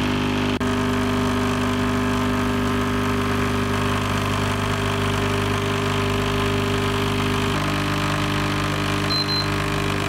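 De'Longhi Nescafé Dolce Gusto Jovia capsule coffee machine's pump running as it brews a milk capsule into a glass: a loud, steady hum whose tone shifts slightly about seven and a half seconds in.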